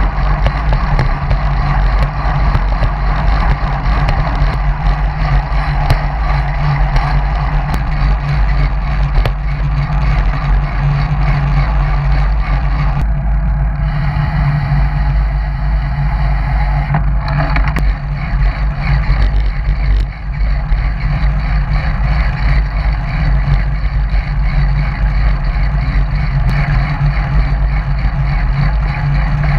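Steady wind rush buffeting the microphone of a bike-mounted action camera while riding a road bike at speed. The sound briefly thins near the middle.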